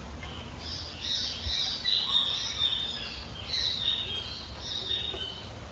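Great kiskadee (bem-te-vi) calling, four or five loud call phrases in a row, over a faint low rumble of distant traffic.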